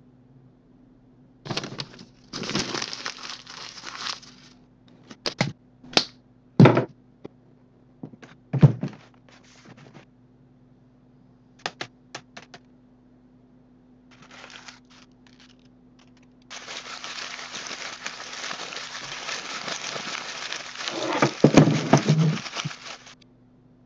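Paper rustling and crumpling in short bursts, broken up by sharp knocks and clicks. Later a long stretch of continuous crumpling builds to several heavy thuds near the end.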